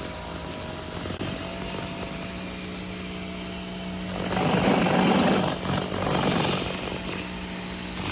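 Greenworks 1800 psi electric pressure washer running with a steady hum, with a louder rush of spray noise from about four seconds in that eases off again around six and a half seconds.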